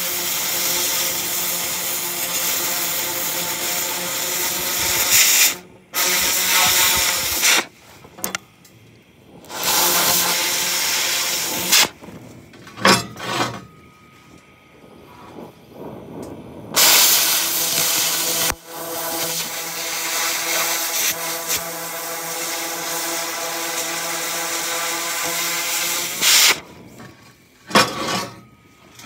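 Oxy-fuel cutting torch cutting thin-wall square steel tubing, its cutting-oxygen jet hissing loudly in a long blast, two shorter ones, and a second long blast in the latter half. A steady pitched tone runs through the hiss. The stretches between blasts are quieter, with only the preheat flame burning.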